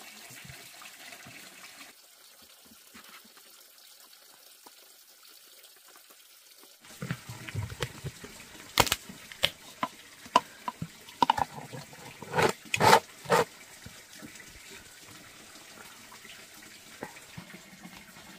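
A clear plastic inner lid being pressed down onto the mouth of a large glass jar: a run of sharp plastic clicks and snaps starting about seven seconds in, the loudest few close together near the end of the run. Before it there is only faint hiss.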